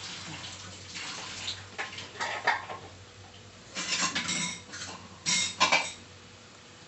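Wooden spatula knocking and scraping against a metal saucepan of frying okra and tomato in several short clattering bursts, the loudest near the end, over a faint steady sizzle.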